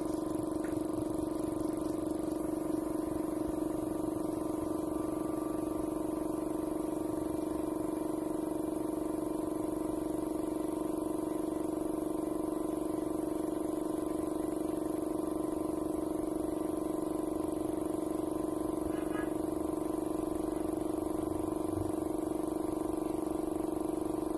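Steady motor hum at one unchanging pitch, with a slight regular pulse in loudness.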